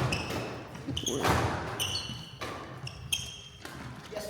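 Badminton rally: rackets striking the shuttlecock, a series of sharp hits about every half second to second, some ringing briefly.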